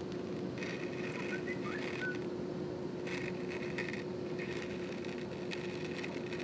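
Heavy thunderstorm rain heard through a window pane as a steady rushing hiss, with a constant low hum under it and a few faint short whistles about one and a half seconds in.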